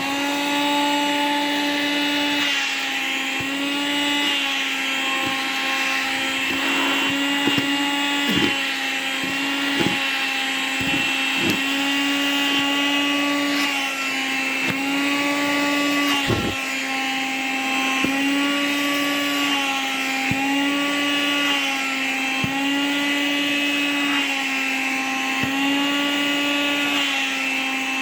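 Vacuum cleaner running with its nozzle sucking on a swimsuit, the motor's pitch stepping up and down every second or two, with a few brief clicks.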